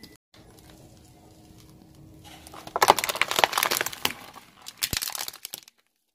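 Car tyre rolling over and crushing a plastic plate of water beads: a loud burst of cracking and crunching about three seconds in, then a second, shorter burst with a sharp snap about five seconds in.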